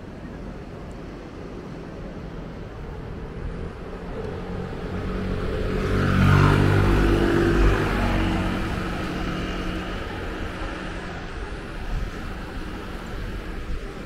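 A motor vehicle passing by: its engine swells to a peak about halfway through, then fades away over a steady background rush.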